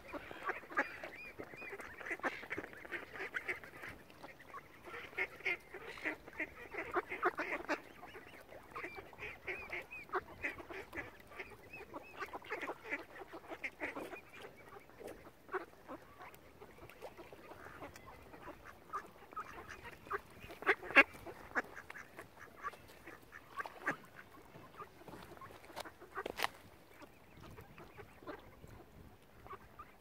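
A flock of mallard ducks and other waterfowl calling over one another while being fed. The calling is dense for the first third and thins out after, with a few sharp clicks, the loudest about two-thirds of the way through.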